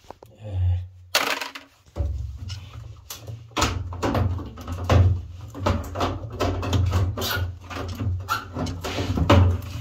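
Rapid, irregular clicking and clattering of hard objects, over a low hum that starts about two seconds in.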